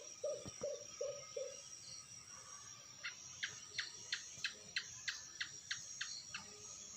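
Bird calls: a run of low, hoot-like notes about three a second that stops about a second and a half in. Then, from about three seconds in, about ten sharp chirps at a similar pace, over a steady high drone of insects.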